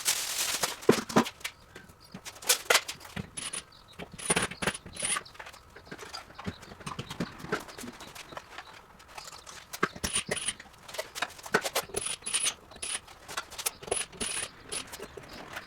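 Irregular hard knocks, clacks and clatter of objects being handled and moved about, with the loudest knocks about a second in and around two and a half seconds in.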